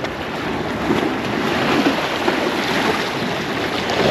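Wind buffeting a chest-mounted action-camera microphone, with waves washing below a fishing pier.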